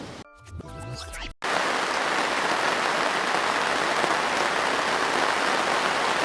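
A brief run of steady tones in the first second and a half, then heavy rain cuts in suddenly and falls with a steady, even hiss.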